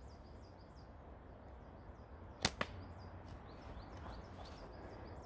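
A modified slingshot shooting a dart: two sharp cracks in quick succession about halfway through, the band release followed by the dart striking the target. A low wind rumble and a small bird's repeated short chirps go on underneath.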